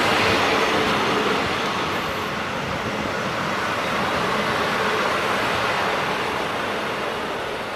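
Heritage passenger carriages rolling past close by as the train arrives: a steady rush of wheels on the rails that eases a little toward the end.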